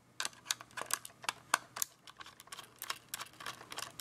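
Irregular series of small, sharp clicks and taps, about three or four a second, from the opened digital camera's plastic casing and internal metal and board parts being handled during disassembly.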